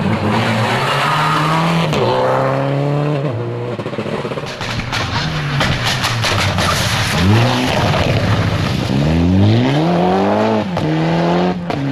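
Rally car engines at full throttle, each rising in pitch in sweeps and dropping sharply at every gear change, several times. One is a Mitsubishi Lancer Evolution accelerating out of a loose-surface corner.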